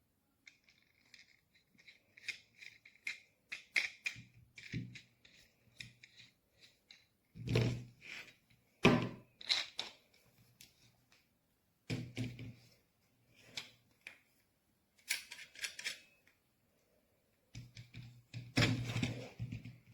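Irregular clicks, taps and knocks of hard objects being handled, with a few duller thumps.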